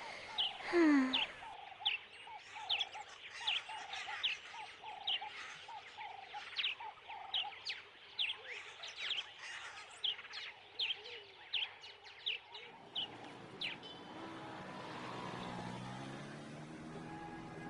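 Birds chirping: a run of short, quick downward-sweeping calls, about two a second, which stop about three-quarters of the way through and give way to a low, even rumbling haze.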